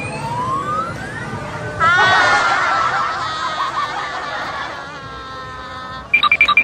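Arcade machine's electronic sound effects: a rising whistle-like tone, then a busy warbling jingle from about two seconds in, steady tones, and a quick run of beeps near the end.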